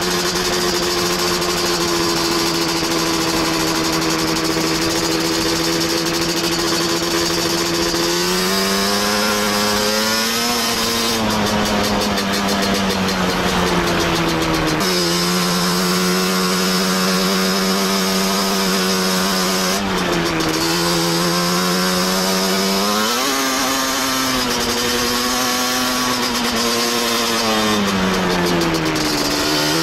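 A Yamaha Banshee ATV's two-stroke twin-cylinder engine running under way. It holds a steady pitch for the first several seconds, then rises and falls several times as the throttle is opened and closed.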